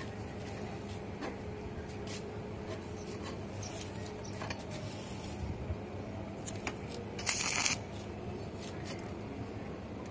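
A stick (arc) welder tacking a stainless steel handrail joint: the arc is struck once about seven seconds in and crackles with a harsh hiss for about half a second before cutting off. A low steady hum runs under it.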